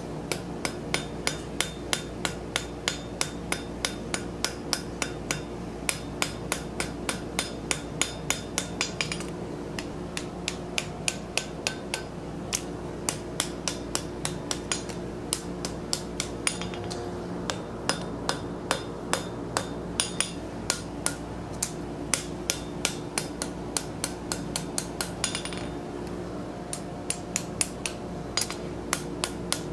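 Blacksmith's hand hammer striking a hot forge-welded steel tee on an anvil, about three blows a second in runs broken by short pauses, as the weld is finished and blended. A steady hum runs underneath.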